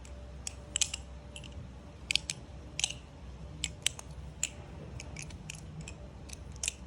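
Balisong (butterfly knife) being flipped: irregular sharp metallic clicks and clacks as the swinging handles strike the blade and each other, sometimes several in quick succession.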